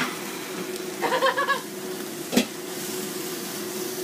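Beef and long beans sizzling as they are stir-fried in a frying pan, with a utensil stirring through them and one sharp knock against the pan about two and a half seconds in. A steady low hum runs underneath.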